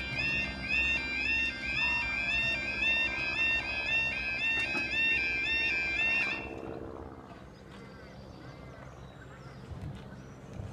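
UK level crossing yodel alarm sounding while the barriers lower, a loud, repeating, warbling electronic tone. It cuts off suddenly about six seconds in as the barriers come fully down, leaving quiet street background.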